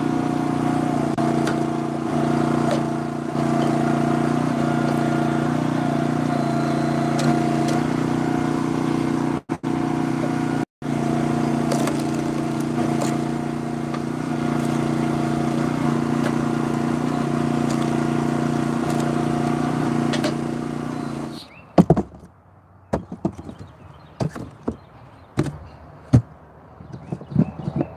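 The small engine of a hydraulic log splitter runs steadily while the wedge splits oak into chunks. About 21 seconds in, the engine sound stops, and wood chunks knock as they are dropped into a cardboard box.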